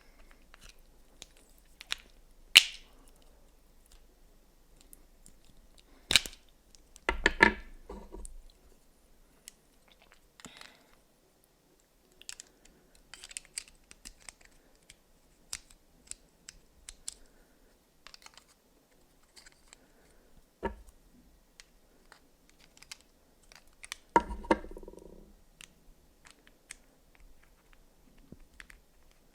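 Close-miked eating of Kinder Surprise Maxi milk chocolate: sparse wet mouth and chewing sounds with sharp clicks, and two short crackly bursts, one about seven seconds in and one about twenty-four seconds in.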